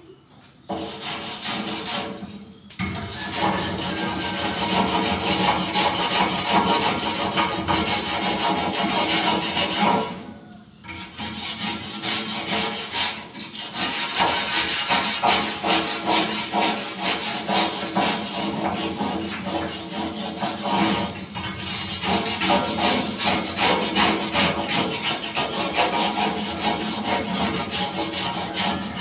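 Fast rasping strokes of a hand tool scrubbing a painted steel roof truss to clean off rust and flaking paint. The scraping goes on in long spells, stopping briefly four times.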